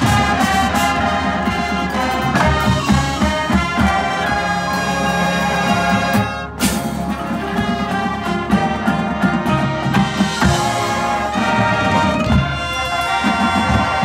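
Marching band playing: full brass chords held over drums and front-ensemble percussion, with a brief cut-off about six and a half seconds in before the band comes back in.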